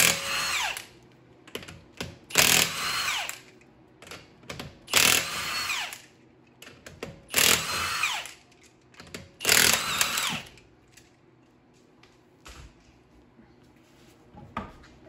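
Milwaukee cordless impact wrench loosening the lug nuts on a Subaru wheel: five loud bursts, each about a second long with a pitch that falls, roughly two and a half seconds apart, then quieter sounds of the wheel being handled.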